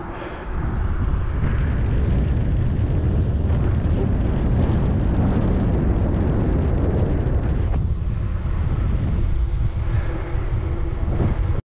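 Wind buffeting the microphone of a GoPro Hero 9 with no windscreen fitted, while it rides along on a moving bicycle: a steady low rush that rises about half a second in and cuts off suddenly near the end.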